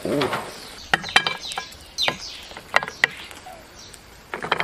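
Metal tongs lifting grilled conch shells off a wire grill and setting them on a plate: a string of sharp clacks and clinks of shell against shell and metal, with a quick cluster near the end.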